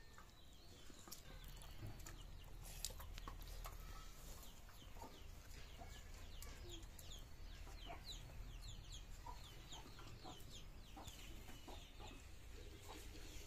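Chickens clucking faintly, with a run of quick, high, falling chirps from about six seconds in.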